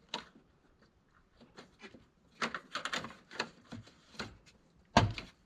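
Scattered clicks and knocks of hands working on a windshield washer pump and its plastic hose, with a cluster of quick taps midway and one louder thump near the end.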